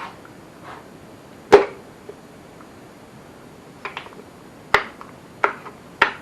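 Sharp tool knocks, about six irregular strikes with the loudest about a second and a half in, as the number two piston and connecting rod are tapped out of the bore of a Holden 173 red six-cylinder engine block.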